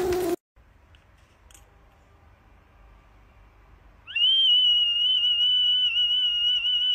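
A small whistle held in a golden retriever's mouth sounds one long, steady, shrill note with a slight waver, blown by the dog's breath and starting about four seconds in. Before it, a short loud sound is cut off right at the start, followed by near silence.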